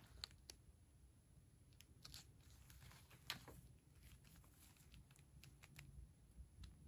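Faint crinkling of a plastic jam sachet being turned over in the hands: a few scattered small crackles, the loudest about three seconds in, over near silence.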